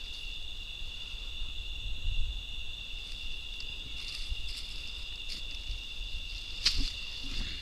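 Crickets trilling in a steady high chorus, over low rustling and handling noise, with two short sharp clicks, one about two seconds in and one near the end.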